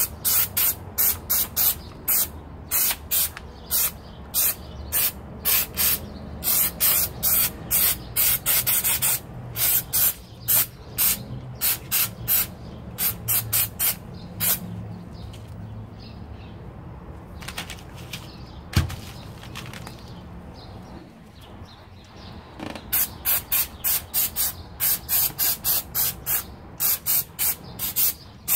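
Aerosol can of mass airflow sensor cleaner sprayed in many short hissing bursts, about two a second, degreasing a rifle before painting. The bursts thin out about two-thirds of the way through, where a single sharp knock sounds, then resume.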